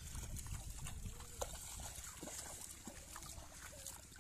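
Faint splashing of a small child's bare feet wading through shallow river water, with a few soft separate splashes over a low steady rumble.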